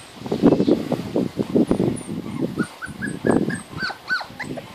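Young Labrador/Golden Retriever puppies yipping and whimpering in a quick string of short cries.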